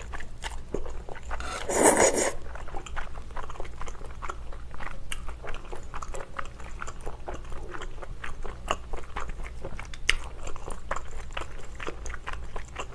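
Close-miked eating of thin glass noodles: one loud slurp about two seconds in, then steady wet chewing with many small clicks and smacks.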